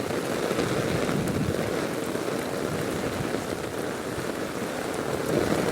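Heavy rain pouring down steadily: a dense, even hiss of falling drops.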